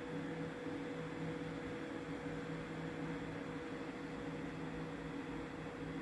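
Steady mechanical hum with a constant hiss and several fixed hum tones, unchanging throughout, like a motor or machine running.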